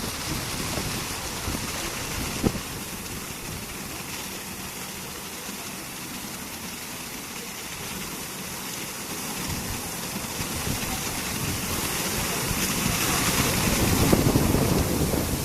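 Automatic rollover car wash machine running: a steady rush of water spray and machinery that grows louder near the end, with one short knock about two and a half seconds in.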